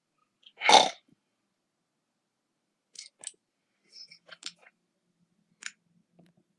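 A sleeper snoring: one loud, short snort about a second in, then scattered faint clicks and smacks, and a faint low drone of snoring breath starting near the end.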